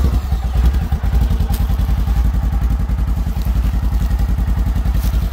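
Polaris RZR Trail side-by-side engine idling steadily just after being started, heard close at the rear, with a fast even pulse.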